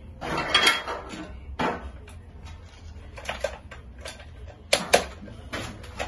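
Plastic clicks and clatter from hands working the housing of an orange rotary changeover switch: a rattling burst about half a second in, then a string of sharp separate clicks, the loudest two close together near the five-second mark.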